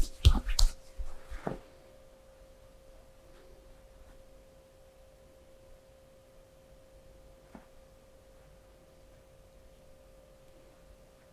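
A quick run of sharp knocks or clicks in the first second and a half, then a faint, steady, mid-pitched hum with one soft click partway through.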